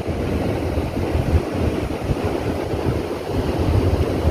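Wind buffeting the microphone in a low, irregular rumble, with sea water washing in the background.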